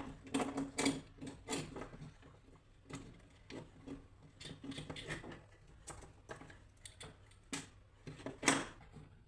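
Irregular clicks and taps from hands handling small parts and tools at a repair bench, with one louder knock near the end.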